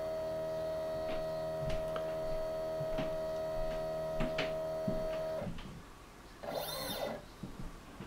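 Stepper motor of a TinyG-driven Zen Toolworks CNC machine moving its axis slowly at a 30 mm/min feed, giving a steady whine with faint ticks. The whine stops about five seconds in, and around seven seconds a quick return move makes a short rising-and-falling whine.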